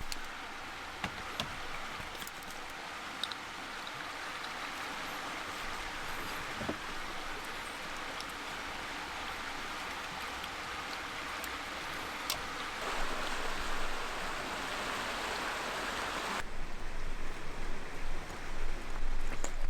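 Flowing stream water, a steady rushing hiss that slowly grows louder. Near the end it cuts off abruptly and gives way to an uneven, gusting noise.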